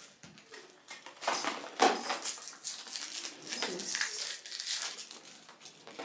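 Handling noise from a new handbag: rustling of its protective plastic film with irregular clicks and knocks, the sharpest about two seconds in.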